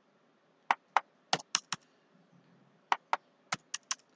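Computer keyboard typing: about ten sharp keystrokes in three short clusters with pauses between them, as numbers are keyed into a form.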